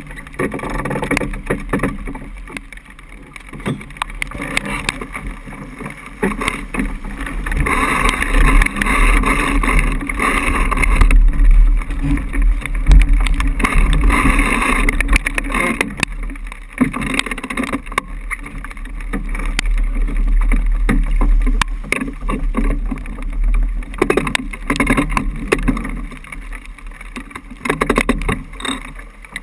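Water rushing and splashing along the hull of a Niagara 26 sailboat heeled over and sailing fast through choppy water, with wind rumbling on the microphone. It grows louder for a stretch in the middle.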